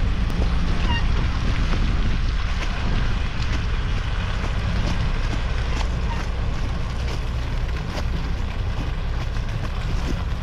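Steady low rumble of the 2011 Ford F250 service truck's engine idling, mixed with wind buffeting the microphone, with scattered light crunching footsteps on frozen snow and mud.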